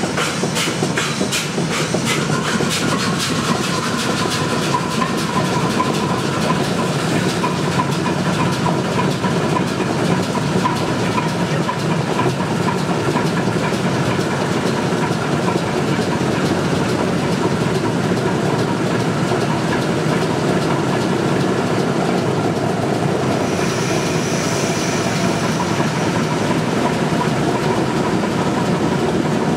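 Large air-started diesel generator engine firing up. Separate, evenly spaced firing knocks merge into a steady heavy run as it comes up to speed. A steady whine comes in about six seconds in, and a brief hiss is heard about 24 seconds in.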